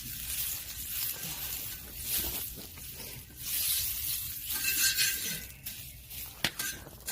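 Oil being wiped over a hot cast-iron cauldron-lid griddle: rubbing and scraping in uneven bursts, with a sharp click near the end.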